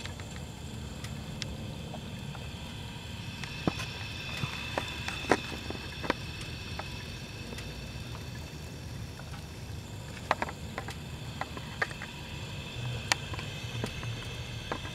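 Scattered light ticks and small pops over a low steady background, from a hot-soaked carbureted engine standing switched off while its gasoline boils in the carburetor float bowl: vapor lock from volatile fuel.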